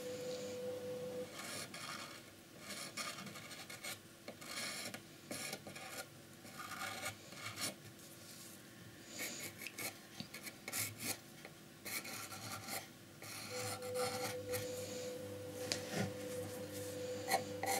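Coloured pencil scratching over the painted surface of a box in short, irregular sketching strokes, drawing the outlines of a design.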